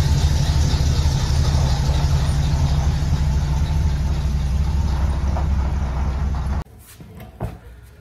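Chevrolet C10 pickup's engine running steadily at low speed as the truck backs slowly away, a deep rumble that cuts off abruptly near the end.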